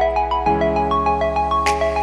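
Background music: a quick, bright run of plucked or mallet-like notes over a steady bass, with a chord change about half a second in and a cymbal-like hit near the end.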